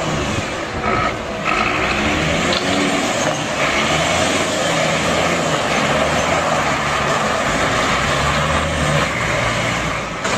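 Flatbed crane lorry's diesel engine running as it drives and manoeuvres, its pitch shifting up and down as the revs change, under a steady noisy rush.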